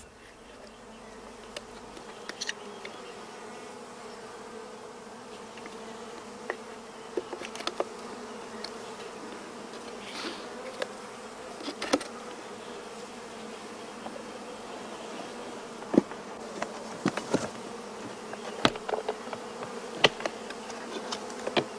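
Honeybees buzzing steadily around nucleus hives, with single bees now and then passing close in short rising-and-falling buzzes. Scattered light clicks and knocks of small wooden bee boxes being handled.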